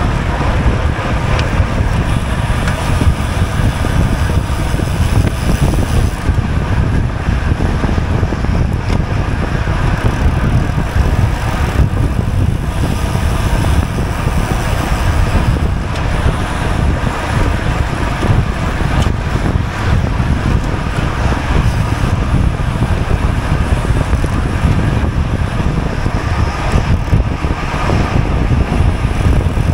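Wind buffeting the microphone of a GoPro carried on a racing bicycle at speed: a loud, steady low rumble.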